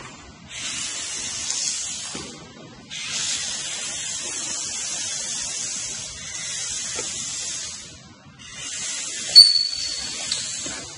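Steady hiss in three long stretches with short breaks between them, and a brief high electronic beep about nine seconds in.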